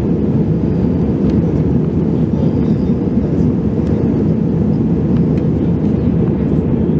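Steady cabin roar of an Airbus A320-200 in flight: engine and airflow noise heard from inside the cabin, mostly a low, even rumble.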